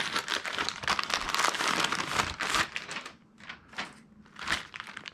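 Packaging crinkling and rustling as a set of resistance bands is unwrapped. The crinkling is dense for about the first three seconds, then breaks into a few separate short rustles.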